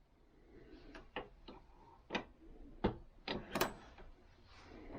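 Light, irregular clicks and one heavier knock from a reloading press and a blank-cartridge star-crimp die being worked, as the adjusting screw is turned in half turns and the case is run up into the die.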